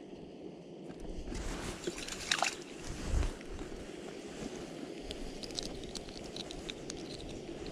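A small fish pulled up through an ice-fishing hole: a burst of sloshing, squelching water and slush with a thump, followed by light clicks of handling the fish and the lure.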